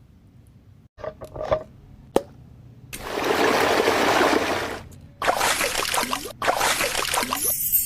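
A few light clicks, then liquid trickling and splashing in several bursts, each a few seconds long or less.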